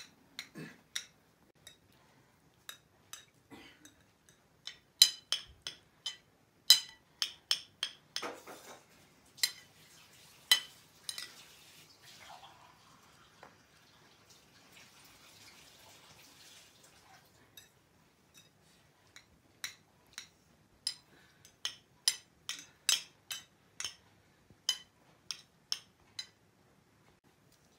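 Metal spoons clinking and scraping against china plates while people eat, in irregular bursts of sharp, ringing clinks, with a softer hissy stretch in the middle.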